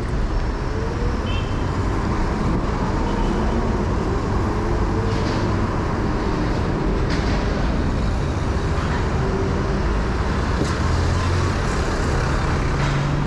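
Steady city street traffic: engines of cars, buses and trucks with tyre noise, running on without a break.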